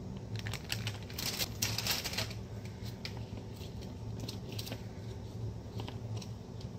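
Knife chopping vegetables on a cutting board: irregular light taps, with a brief scraping rustle about one to two seconds in, over a low steady hum.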